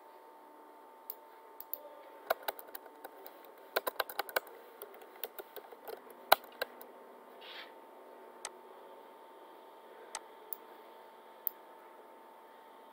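Computer keyboard keystrokes: a quick run of key clicks in the first half, then a few single key presses spaced apart. A faint steady tone runs underneath.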